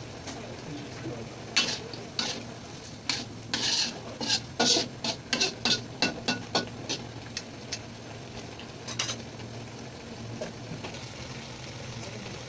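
Spatula scraping and knocking against a wok while squid and snow peas are stir-fried, a quick run of strokes between about two and seven seconds in, with a few more near nine seconds. A steady low hum runs underneath.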